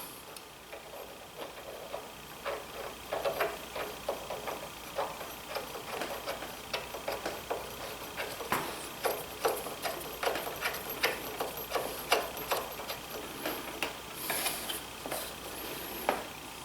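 Light, irregular metallic clicks and taps, about two or three a second, as the nut is threaded by hand onto the pulley shaft of a DeWalt 735 planer, with a short scrape near the end.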